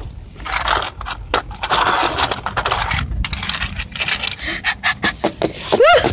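Scraping and clicking handling noise as plastic toy figures and the phone are moved about over paving stones. Near the end comes a short voice sound whose pitch rises and then falls.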